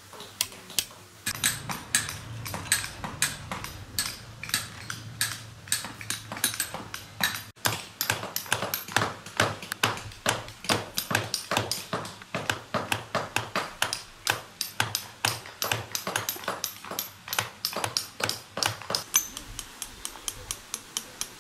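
Hand hammer striking a steel chisel into a block of stone: a quick, regular series of sharp, ringing taps, about two to three blows a second, as the chisel chips away the stone.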